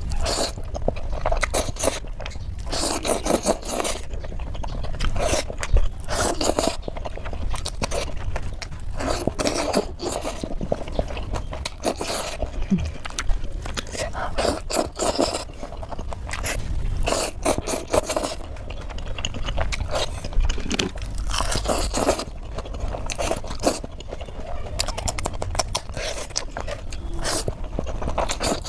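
Close-miked eating: chewing and biting of chow mein noodles and Manchurian, in irregular bursts every second or so.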